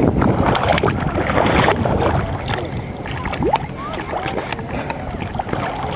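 Outdoor waterside noise: wind on the microphone over water sloshing and splashing, with scattered small clicks.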